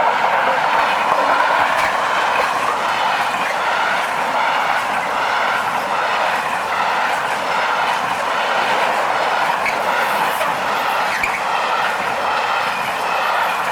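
Freight train of pipe-carrying wagons rolling past. A loud, steady rush of wheels on rail with a few faint clicks.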